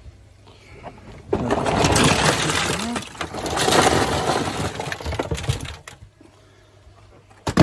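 Loose K1 plastic filter media clattering as it is handled in its tub, a dense rattle of many small hard pieces that stops about six seconds in.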